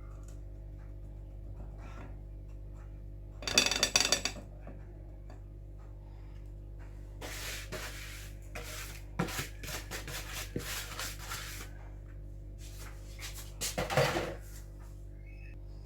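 Kitchen utensil scraping and rubbing against a bowl and a round cake ring as buttered biscuit crumbs are spread and pressed in for a cheesecake base. There is a burst of louder clattering scrapes about four seconds in, a run of lighter scrapes in the middle, and another loud scrape near the end.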